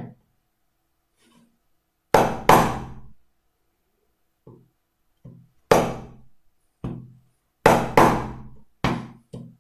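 A chisel being driven into wood by a mallet: about ten sharp knocks, several in quick pairs, with short pauses between. It is chopping and cleaning the edges of a shallow recess.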